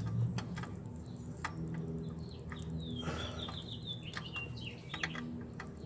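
A bird chirping: a quick run of short falling notes about three seconds in, over scattered light clicks and a low steady hum.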